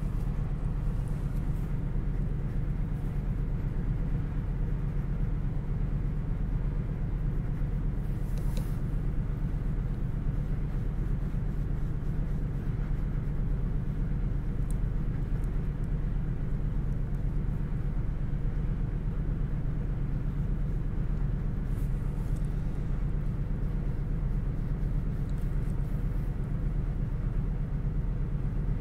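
Steady low background hum, with a few faint scratches from a ballpoint pen shading on cardboard.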